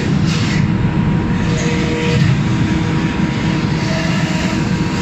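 Steady, loud drone of the Taima ferry's machinery heard inside its car deck: a low rumble with a few faint, steady whining tones over it.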